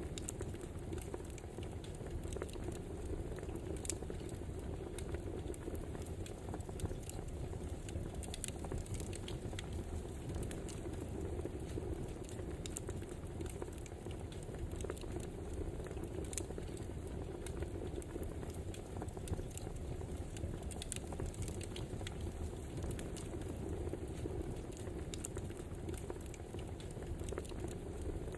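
Wood fire crackling: a steady low rush of burning logs with frequent scattered pops and snaps.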